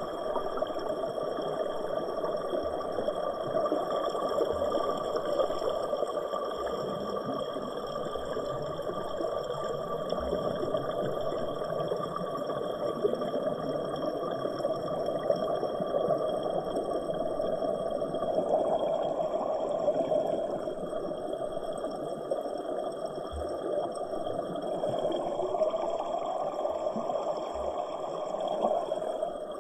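Waterfall rushing steadily, a continuous noise of falling water, with faint steady high-pitched tones above it.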